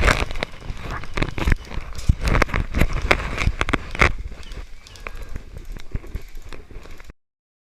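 Irregular knocks, clicks and rustling over a heavy low rumble from a body-carried camera, typical of a player moving with airsoft gear; the sound cuts off abruptly about seven seconds in.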